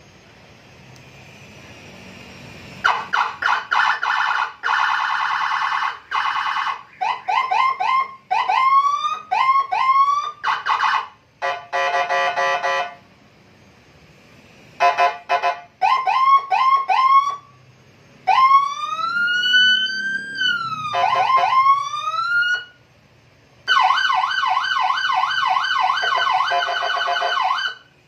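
Custom police-escort siren fitted to a Honda PCX scooter, switched through its tones one after another: a fast warble, runs of quick rising whoops, and a slow wail that climbs, holds and falls, with short breaks as the mode changes. It starts about three seconds in.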